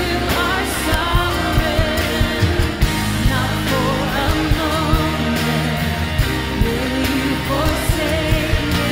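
Worship song played by a band with a steady beat, with voices singing the melody.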